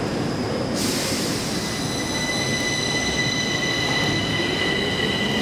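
Metro train in the station: a low rumble, a hiss about a second in, then a steady high-pitched wheel squeal in several tones from about a second and a half in.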